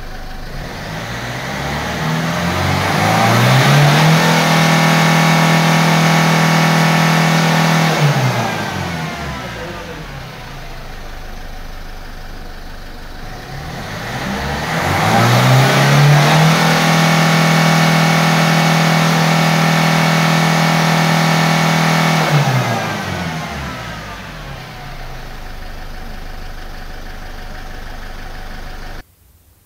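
Ford hatchback's diesel engine snapped from idle to full revs twice, about fourteen seconds apart. Each time the revs climb for a few seconds, hold steady at the top for about four to five seconds, then fall back to idle. These are free-acceleration runs of a diesel smoke-opacity emissions test.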